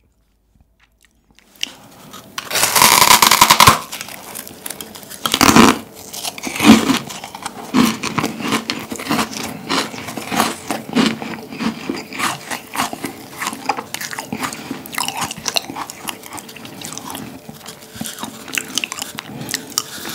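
A large meringue cookie crunching as it is bitten and chewed. A loud crackling crunch starts about two and a half seconds in and lasts about a second, a sharp crunch follows a couple of seconds later, and then comes steady crisp chewing with many small crackles.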